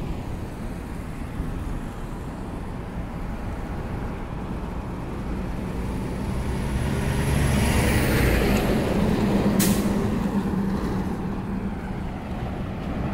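City traffic with a heavy road vehicle passing close: its engine rumble swells to a peak about eight seconds in and then fades, with a falling high whine as it goes by and one brief sharp burst of noise just after the loudest point.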